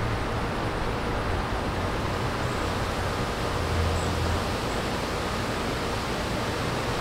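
Steady outdoor wind noise, an even rushing hiss, with a brief low rumble of a gust on the microphone about four seconds in.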